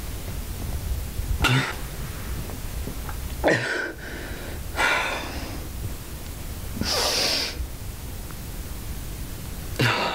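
A distressed man breathing hard in sharp gasps: five short breathy bursts a second or two apart, over a steady low hiss.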